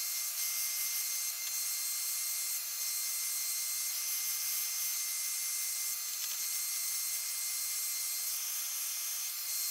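Handheld heat gun running steadily, warming a PVC strip so it can be bent. Its fan blows a high, airy hiss with a faint steady whine.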